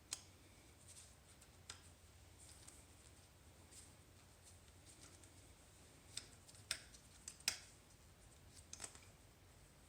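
Faint, scattered small metal clicks and taps with near silence between, a few sharper ones bunched past the middle: a 3mm Allen key and brake pads being worked out of a hydraulic disc brake caliper.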